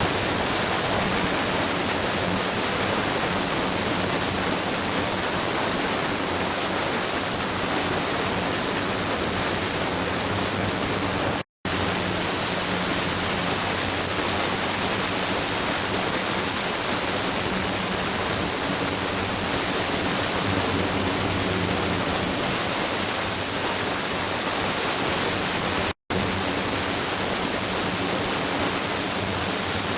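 Running water in a flowing-water ultrasonic setup, a steady rushing hiss with a thin high-pitched whine held over it. The sound drops out completely for a moment twice, about a third of the way in and again near the end.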